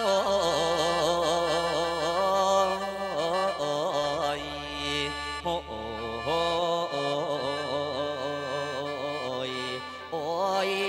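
Live Isan mor lam song: a male voice draws out long, wavering sung phrases, with short breaks between them, over a steady low drone from the backing band.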